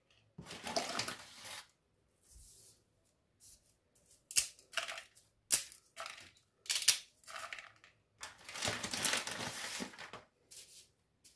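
Dry spaghetti being snapped by hand into short pieces: irregular runs of crackling snaps with single sharp cracks in between, the broken pieces falling into a plastic bowl.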